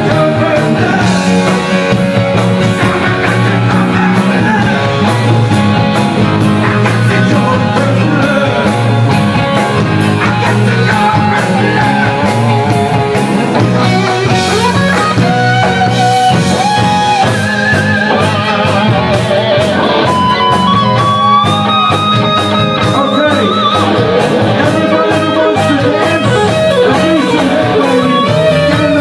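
Live rock band playing: electric guitar, drums and keyboard with a singer on a microphone. Long wavering sung notes stand out in the second half.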